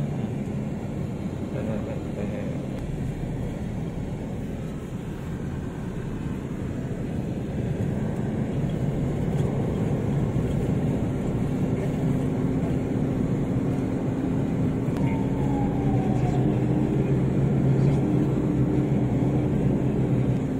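Car engine and tyre noise heard from inside the cabin while driving: a steady low drone whose engine note rises slowly through the second half.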